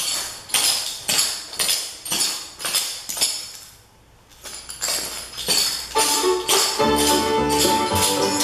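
Metal clogging taps clicking on a concrete floor in a steady walking rhythm, about two steps a second, with a short pause near the middle. About two-thirds of the way through, bluegrass music starts under the steps.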